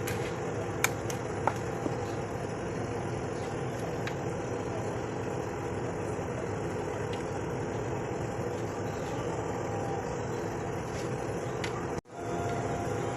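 A small motor running steadily, with a few light clicks early on and a brief sudden cut near the end.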